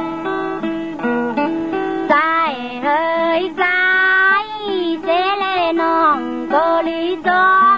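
Tai Lue khap singing: an instrumental melody of short stepped notes plays alone for about two seconds, then a singer comes in with long held notes that slide and waver in ornamented glides over the accompaniment.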